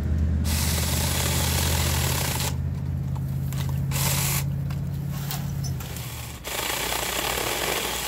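Taranzy mini cordless chainsaw running while cutting small tree branches, a steady low motor hum. The hum stops about six seconds in and a steady hiss follows.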